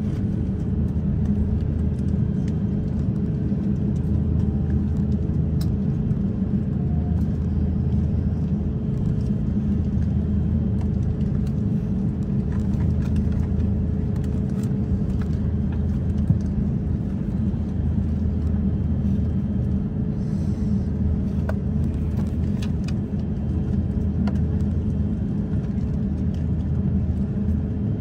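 Cabin noise of a jet airliner taxiing after landing: a steady low rumble with a faint steady hum, and a small click about halfway through.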